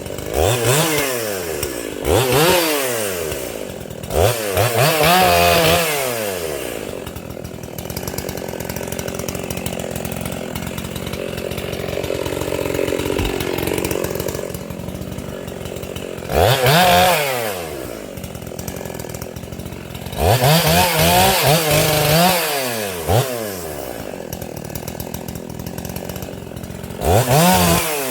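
Makita EA7900 / Dolmar 7900 80cc two-stroke chainsaw, muffler-modded, revving up to full throttle about six times, each for one to three seconds, and dropping back to idle in between.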